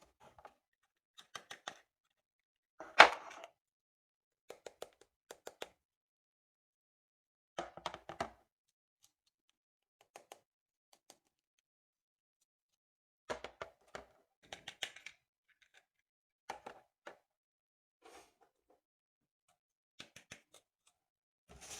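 Scattered clicks, taps and knocks of objects being handled, with dead silence between them; the sharpest knock comes about three seconds in.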